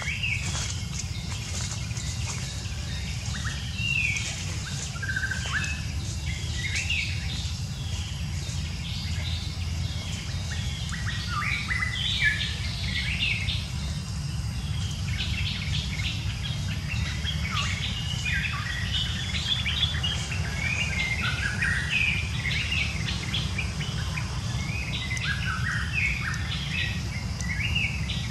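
Birds chirping in many short, overlapping calls, growing busier about ten seconds in, over a steady low rumble.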